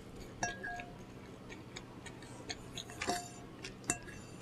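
A utensil clinking lightly against a dish while eating, three clinks with a short ringing tone: about half a second in, about three seconds in and just before four seconds. Fainter small clicks fall in between.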